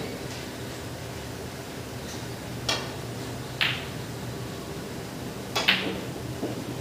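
Snooker balls clicking: a few sharp knocks of cue tip on cue ball and ball on ball, spaced a second or two apart, with a quick double click near the end, over a steady low hum.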